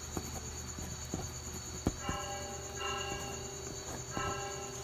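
A ballpoint pen writing on paper, with faint scratches and ticks, over a steady high trill of crickets. From about halfway, a soft held tone with several pitches joins in.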